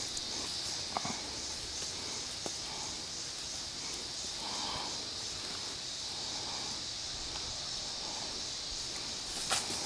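Steady high-pitched buzzing of insects in summer woods, with a few soft crunches of footsteps on dry leaves and a couple of sharp clicks, one about a second in and one near the end.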